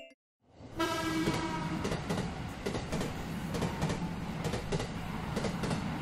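Shinkansen bullet train passing: a short horn blast about a second in, then steady rushing noise with rhythmic clacks of wheels over rail joints.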